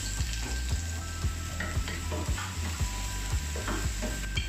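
Chopped onion sizzling in hot oil in a nonstick frying pan, stirred with a spatula. Background music with a steady beat plays underneath.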